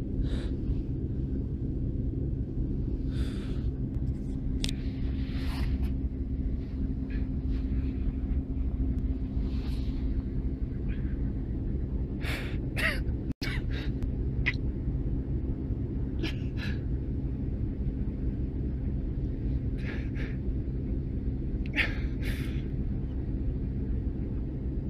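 Rottweiler whimpering in short, high-pitched cries, many times over, as it grieves over its dead brother. Under it runs the steady low rumble of a car cabin on the move.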